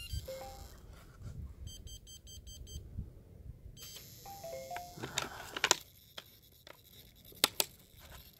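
Electronic power-up beeps from an RC helicopter's electronics: a short falling pair of tones, a run of rapid high-pitched beeps, then a stepped four-note tone sequence about four seconds in. Several sharp clicks follow, the loudest sounds here.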